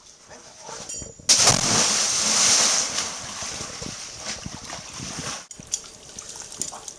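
A person in a wetsuit dropping off a rope into a deep canyon pool. A loud splash about a second in, followed by water churning and settling for a few seconds.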